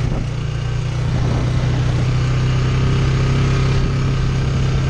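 Polaris Sportsman ATV engine running steadily while riding along a dirt trail, dipping briefly and picking up again about a second in.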